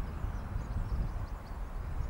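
Low, uneven outdoor rumble, with faint bird chirps scattered through it.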